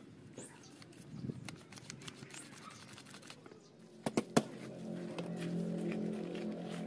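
Light clicks and clatter of small parts being handled by hand, sharpest in a quick cluster about four seconds in. After that a steady low hum sets in and holds.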